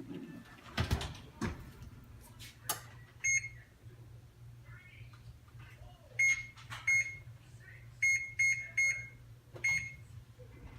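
About seven short, high electronic beeps, irregularly spaced like buttons being pressed on an appliance keypad, over a steady low hum. A few knocks come in the first three seconds.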